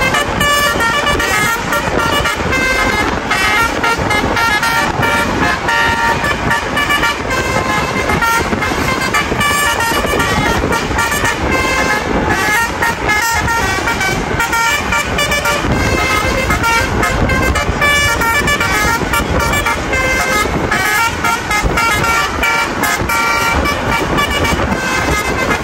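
Bus basuri horns, multi-tone musical air horns, blaring in shifting tone patterns without a break over the noise of bus engines and traffic.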